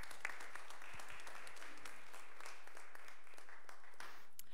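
Congregation applauding, a dense patter of hand claps that thins out and dies away near the end.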